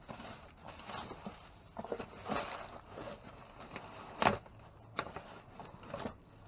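Rubbish being handled and shifted in a dumpster: irregular rustling and scraping with scattered knocks, the loudest about four seconds in.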